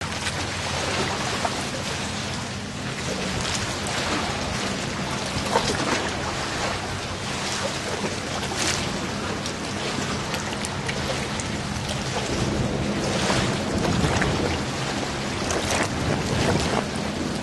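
Outdoor ambience: a steady rushing noise over a low hum, with scattered faint clicks and knocks.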